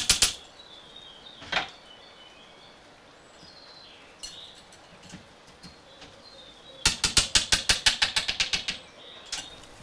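Metal putty knife prying resin 3D prints off the build plate: about seven seconds in, the thin support struts snap in a rapid run of sharp clicks lasting about two seconds. Before that there is one single click and some faint high chirps.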